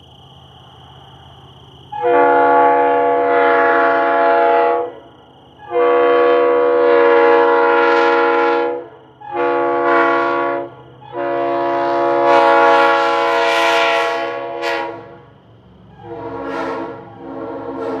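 Multi-chime air train horn sounding a loud chord in four blasts, long, long, short, long: the grade-crossing pattern. A quieter horn chord starts near the end.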